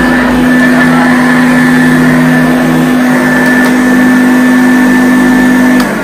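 1983 Hoover U2210 Compact Junior upright vacuum cleaner running steadily at full power with a constant hum and whine, its motor running smooth on new bearings. Near the end it is switched off and winds down.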